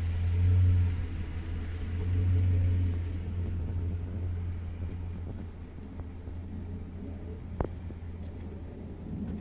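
A vehicle engine running with a low, steady rumble that slowly grows fainter, with a single sharp click late on.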